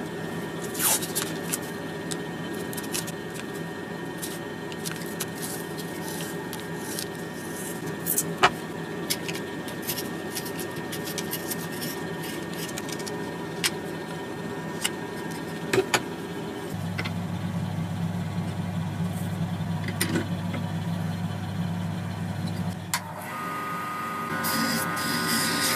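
Light clicks and taps of hands handling a roll of masking tape and a utility knife on a workbench, over a steady machine hum. Near the end a wood lathe's running sound with a thin whine comes in.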